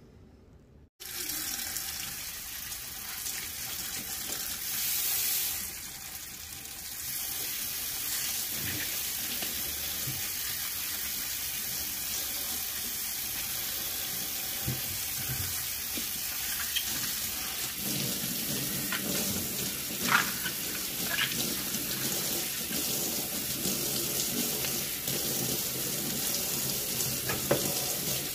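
Kitchen tap water streaming into a stainless steel sink and colander as taro stems are rinsed under it, a steady rush that starts about a second in. A few short knocks sound now and then over it.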